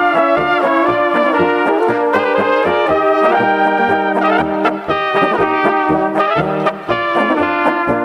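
Brass band playing a polka: trumpets and trombones carry the tune over a regular, pulsing bass beat.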